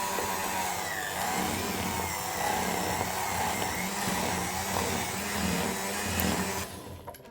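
Electric hand beater running as it whips a chilled white-chocolate ganache, its motor pitch wavering as it works; it stops shortly before the end.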